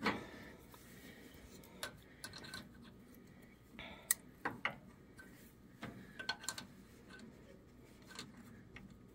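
Faint, scattered metallic clicks and ticks of an adjustable wrench on a screw extractor as it is fitted and turned, backing out a broken bolt that turns easily.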